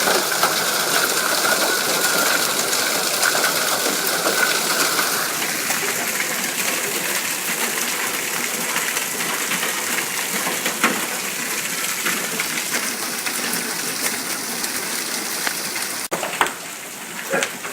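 Heavy hail and rain pelting down: a dense, steady hiss with scattered sharp hailstone impacts. A steady high tone runs under it until about five seconds in.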